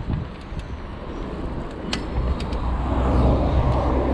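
A car engine running close by in street traffic, growing louder from about halfway through, over the steady rumble of riding a bicycle on the road. A few sharp clicks are scattered through.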